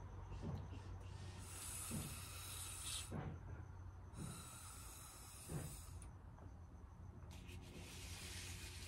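A person blowing hard through a drinking straw in three long hissing blows, each about a second and a half, with short breaths between them, chasing wet ink across paper.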